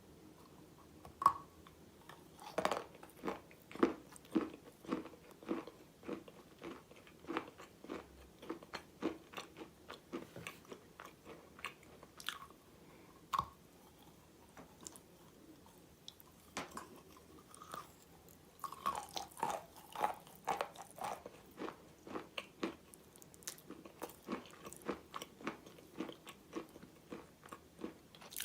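Close-up bites and crunching chews of a hard chalky bar coated in red clay paste. The crunches come in irregular runs, with a loud bite about a second in and a pause of a few seconds midway.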